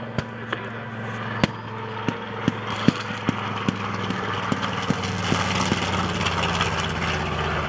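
The Avenger's Wright Cyclone R-2600 fourteen-cylinder radial engine drones steadily and grows gradually louder as the aircraft approaches. A series of sharp clicks comes through the first half.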